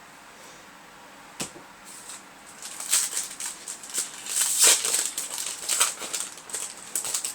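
Yu-Gi-Oh! trading cards and a foil booster-pack wrapper being handled, with quick irregular rustling and crinkling. There is a single click about a second and a half in, and the rustling grows busier from about two and a half seconds.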